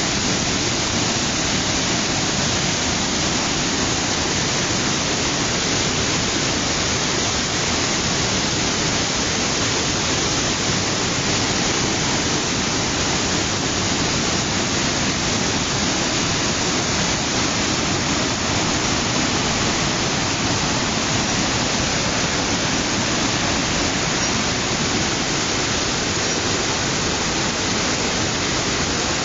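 Waterfall pouring steadily: a continuous, even rush of falling water with no breaks.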